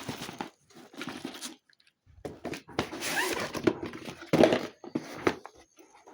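Hands handling packaging and an old toy drone: irregular rustling, crinkling and small knocks, with a short pause about two seconds in.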